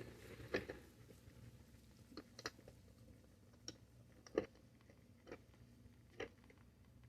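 Faint, scattered small clicks and crackles, about seven short ones spread over several seconds, with near silence between them.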